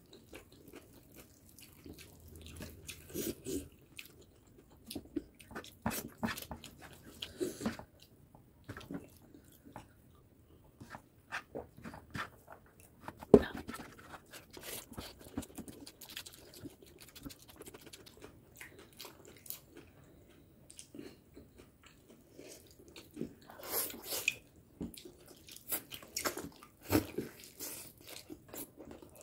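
Close-miked eating: irregular chewing, biting and crunchy bites of food. A single sharp click about 13 seconds in is the loudest sound.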